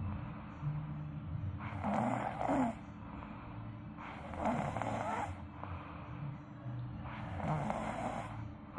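A child sleeping face-down, snoring. Three snoring breaths come about two and a half seconds apart.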